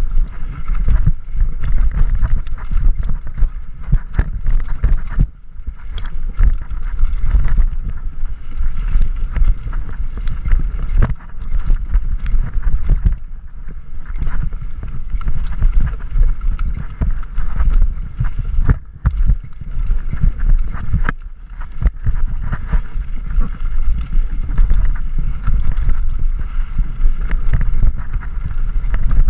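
Mountain bike descending a rocky dirt trail, heard from a rider-mounted camera: wind buffeting the microphone in a heavy rumble, the tyres rolling over dirt and rock, and frequent knocks and rattles as the bike hits bumps.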